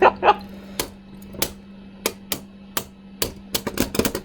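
Two spinning 3D-printed Beyblade Burst tops clashing in a stadium. A string of sharp clacks comes at irregular intervals and grows faster near the end.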